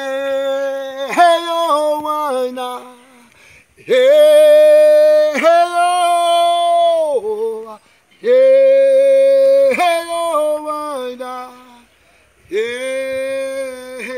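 A man singing a Kariri-Xocó chant unaccompanied, in four long phrases: each swoops up into a held note, steps down in pitch, and breaks off, with short pauses between.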